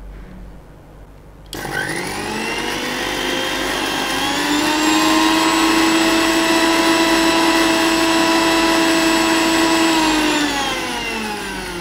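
Electric mixer grinder grinding dry spices (grated coconut, cumin, coriander and poppy seeds) into masala. The motor starts about one and a half seconds in with a rising whine as it spins up, runs at a steady pitch, then winds down with a falling whine near the end.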